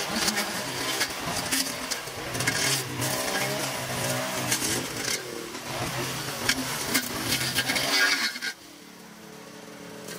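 Small engine running, its pitch wavering up and down, cutting off about eight and a half seconds in.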